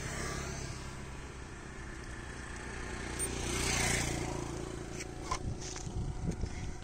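A motorcycle passing on the road, swelling and fading about four seconds in. A few light metallic clicks near the end as an Allen key works the cut-muffler insert out of a motorcycle silencer.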